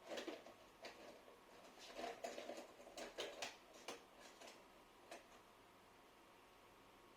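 Rigid plastic card being worked along the edge of an iMac's glued display to cut the adhesive: faint scratchy clicks and scrapes in short clusters, stopping about five seconds in.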